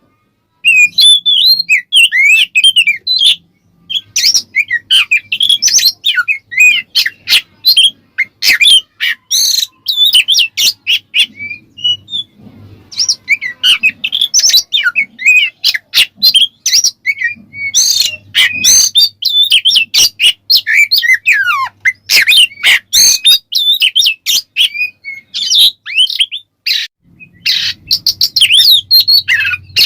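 Oriental magpie-robin (kacer) in full, loud song: a rapid run of varied whistles, chattering notes and sharp clicks, broken by short pauses.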